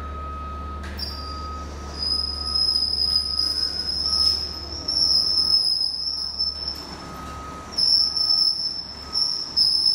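Loud, high-pitched squealing that comes and goes from about two seconds in, as a skid-steer loader drags the wooden hull jig out across the concrete shop floor.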